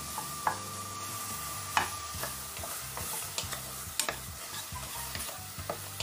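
Wooden spoon stirring cut strawberries in a small steel saucepan on a low gas flame, tapping and scraping against the pan at irregular intervals, over a steady hiss.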